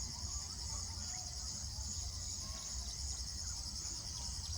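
Steady, high-pitched chorus of trilling insects, like crickets, over a low rumble.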